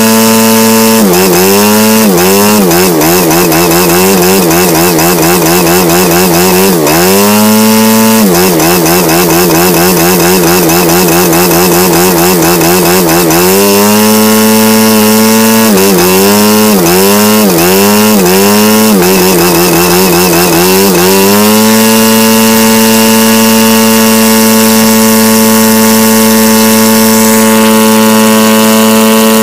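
Single-cylinder ASP Magnum SC 180 two-stroke model aircraft engine, converted to petrol, running with its propeller. The throttle is opened and closed again and again, the engine rising and falling in speed, then from about two-thirds of the way through it is held steady at high throttle, close to 6,700 rpm on the tachometer.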